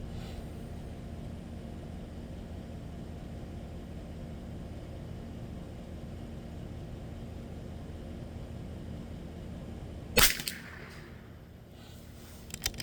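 A single shot from a Bergara B14R .22 LR bolt-action rifle about ten seconds in, sharp and brief, over a steady low rumble. A couple of sharp clicks follow near the end.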